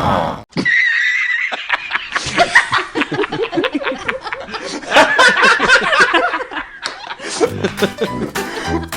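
Laughter over background music. A steady low beat in the music comes in about seven and a half seconds in.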